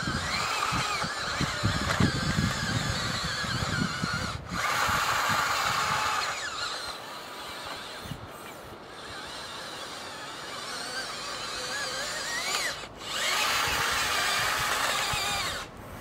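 RC scale bulldozer's electric drive motors and gearboxes whining in spurts as it drives and turns, the pitch rising and falling with the throttle; the two loudest spurts, about a third of the way in and near the end, cut off suddenly. A low rattle sounds in the first few seconds.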